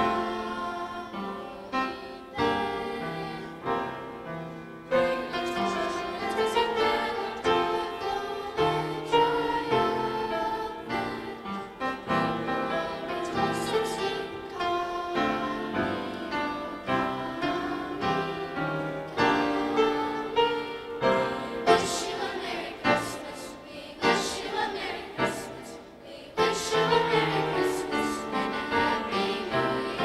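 Middle-school choir singing a seasonal song in sustained phrases, accompanied on an upright piano.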